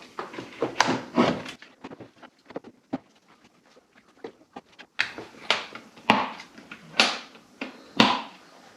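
Plastic knocks and clacks of an air filter box cover being worked into place and its spring-loaded latches snapped shut: a cluster of knocks about a second in, quieter ticks, then five sharp, louder clacks about a second apart in the second half.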